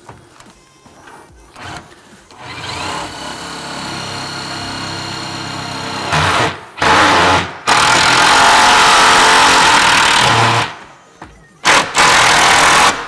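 A Makita cordless driver drives Phillips screws through a grille bracket into the metal grille subframe. It starts with a steady whine for a few seconds, then gives several loud, harsh bursts as the screws bite into the metal, the longest lasting about three seconds.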